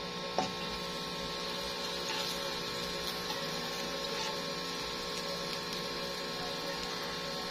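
Steady hum with butter sizzling faintly as it melts in a hot nonstick pan, and a light tap of the spatula against the pan about half a second in.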